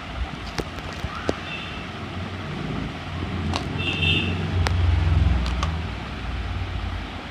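A motor vehicle passing by, its low rumble building to a peak about five seconds in and then fading. Two short high beeps sound along the way, with scattered light clicks.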